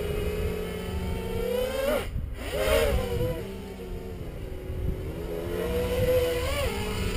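Motors and propellers of a Peon 230 3D-printed quadcopter in flight, a steady whine whose pitch rises and falls as the throttle changes. About two seconds in it dips briefly, then sweeps up and back down in a throttle burst.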